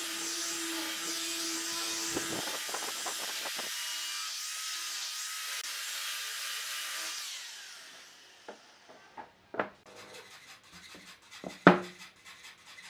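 Electric die grinder with a sanding drum sanding the inside curve of a wooden frame: a steady motor whine under a rasping hiss that fades out about seven seconds in. Then a few sharp wooden knocks as heavy boards are set down on a bench, the loudest near the end.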